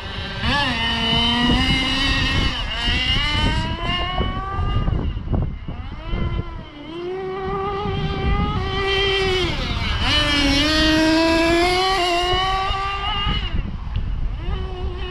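Nitro-powered Kyosho Inferno GT2 RC car's small glow engine revving up and down as the car is driven, its pitch rising and falling. It eases off about five to seven seconds in, then winds up again.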